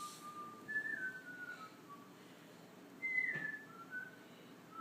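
A person whistling a slow, simple tune of single clear notes, several gliding down in pitch, with short pauses between phrases.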